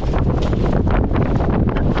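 Gale-force wind buffeting the microphone: a loud low rumble with rapid, ragged flutter and no let-up.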